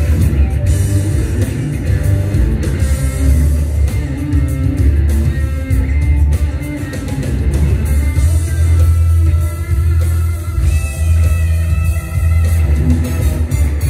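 Electric guitar played live over a rock backing with heavy bass and drums, held melodic guitar notes coming through in the second half.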